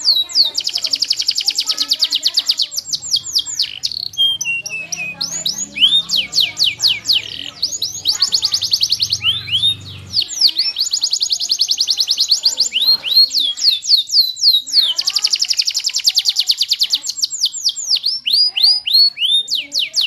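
Yellow domestic canary singing a long, loud song of rapid trills: fast runs of quick downward-sliding high notes, one roll after another, with a couple of brief pauses.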